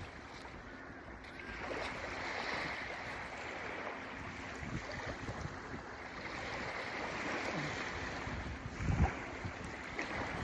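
Surf breaking and washing up on a beach, swelling and easing twice, with wind buffeting the microphone. There is a low thump about nine seconds in.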